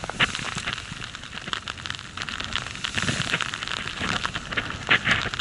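Steady hiss and crackle of deep powder snow spraying as a rider descends through it, with many small clicks and a couple of louder surges near the end.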